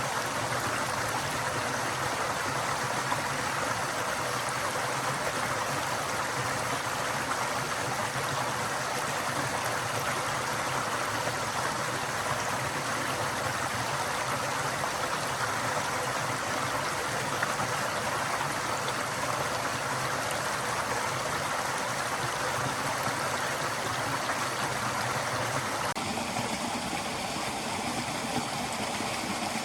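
A forest stream flowing steadily, water rushing and babbling over rocks. Its tone shifts a little near the end.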